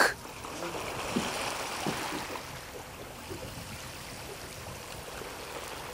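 Low, steady wash of water lapping around a small boat, slightly fuller for a second or two near the start.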